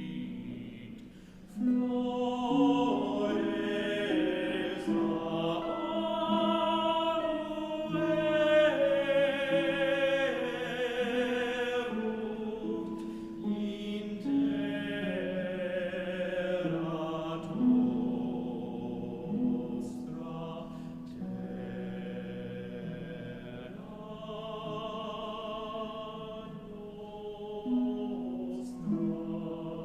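A choir singing a slow sacred choral piece, several voice parts holding long notes that move together in steps.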